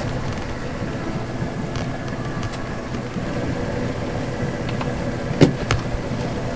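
Boat engine idling steadily, with one sharp knock about five seconds in.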